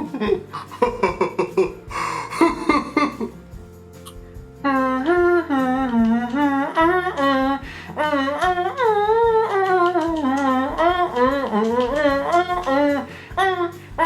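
Background music, with a wordless hummed melody that comes in about four and a half seconds in and glides up and down.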